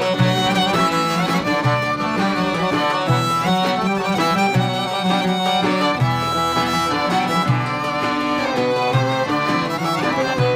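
Aegean folk ensemble playing an instrumental passage: violin carrying the melody over accordion and a plucked oud, with a steady beat in the bass.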